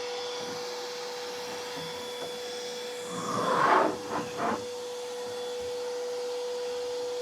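Table saw running with a steady whine. About three seconds in comes a louder, rough burst in three surges, typical of the blade biting into the plywood.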